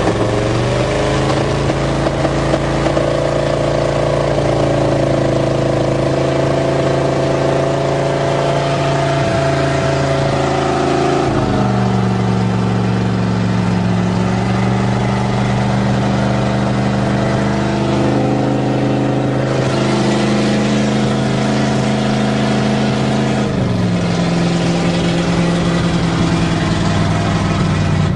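1977 GMC truck's carbureted engine running steadily on choke just after a cold start, heard from inside the cab. Its speed changes in steps partway through and again near the end.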